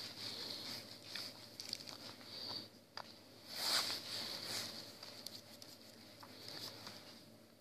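A heap of fried pork cracklings being stirred and tossed, a dry rustling patter of small pieces that swells in several bursts, with a few small clicks between them.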